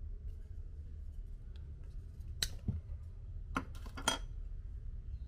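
Small wooden-handled knife having its wooden blade cover slid off: a sharp click a little over two seconds in, then a quick cluster of clicks and light scrapes of wood on metal about a second later.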